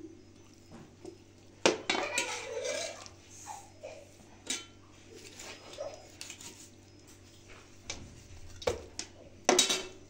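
Steel knife knocking and scraping against a metal tray while raw chicken is cut up by hand: a few sharp metallic clinks, the loudest about a second and a half in and again near the end as the knife is set down on the tray.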